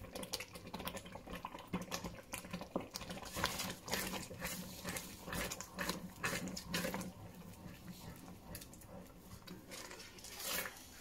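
Wooden spoon stirring a thick, simmering milk, carrot and rice mixture (gajrela) in a stainless steel pot: irregular soft scrapes, knocks and wet squelches, over a low steady hum.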